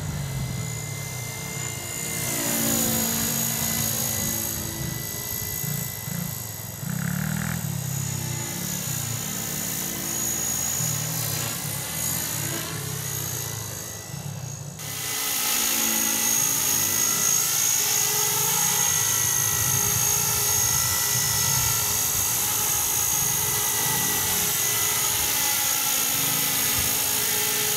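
Skyartec Wasp V4 Belt 250 electric RC helicopter in flight: the steady high-pitched whine of its brushless motor and spinning rotors, with slow sweeping shifts in tone as it moves about. About halfway through it becomes louder and steadier as the helicopter comes close.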